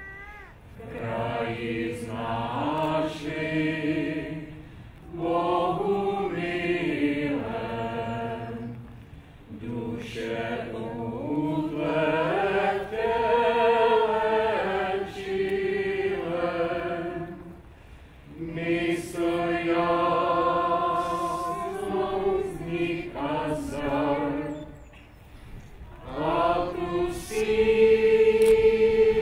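A small group of men and women singing together in a slow, chant-like song, in long held phrases with short breaths between them.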